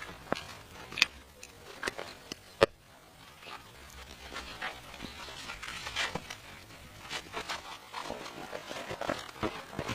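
Scattered sharp clicks and rustling scrapes, with one louder click a little over two and a half seconds in.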